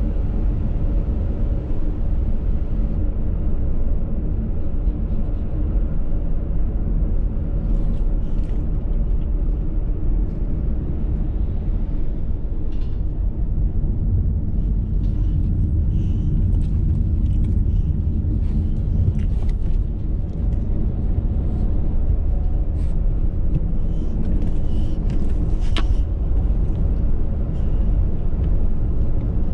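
A car driving, heard from inside the cabin: a steady low rumble of engine and road noise, with a few faint clicks and rattles.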